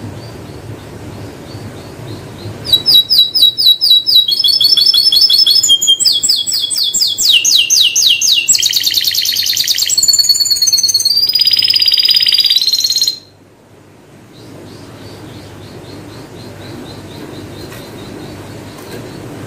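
Canary singing a loud song of rapid trills: each phrase is a fast run of one repeated high note, switching to a new phrase every second or so. The song starts about three seconds in and breaks off suddenly about two-thirds of the way through, with only faint repeated chirps before and after.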